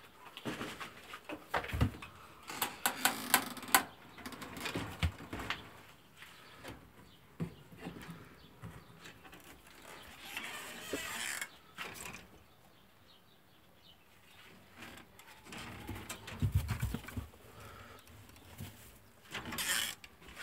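Wooden rabbit hutches with wire-mesh fronts knocking, clicking and creaking as they are handled, in irregular bursts. There is a short rustle about ten seconds in, a quiet stretch after it, and then a few low thuds.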